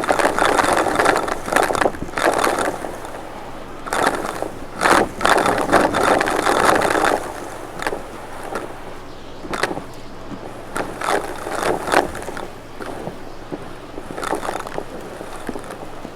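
Vacuum cleaner running with a steady low hum, broken by bursts of rushing, rattling noise as it is pushed over the surface and picks up debris.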